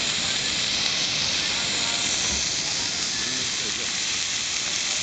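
Beef sizzling on a grill: a steady hiss.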